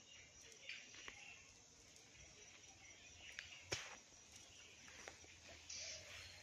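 Near silence: faint outdoor ambience with a few soft clicks and rustles, the sharpest a little under four seconds in.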